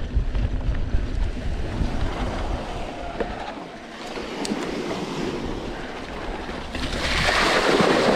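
Mountain bike rolling along a dirt trail with wind rumbling on the microphone, then about seven seconds in the bike rides into a creek crossing and water splashes loudly around the wheels.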